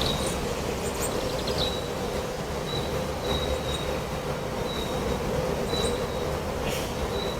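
Wind rushing steadily through a forest, with a low steady drone underneath. A bird repeats a short, high note about every half second.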